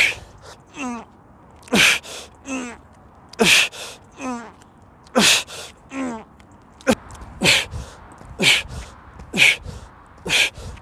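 A man's sharp, forceful exhalations with the effort of exercise reps, about one every second or two and quicker near the end. Most are followed by a short grunt that falls in pitch.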